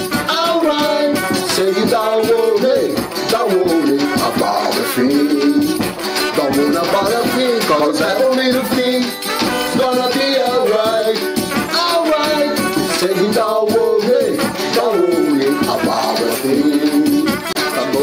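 Instrumental music: a shaker rattles along under a melody line that rises and falls.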